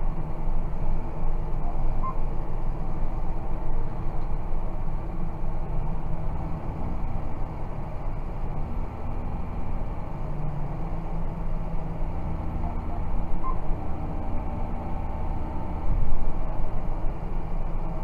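John Deere 6190R tractor's six-cylinder diesel engine running steadily under load while pulling a reversible plough, heard from inside the cab. It briefly gets louder near the end.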